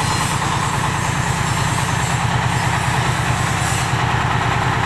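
Paving-block making machine running on a trial run: a steady mechanical hum with a fast, even rattling pulse.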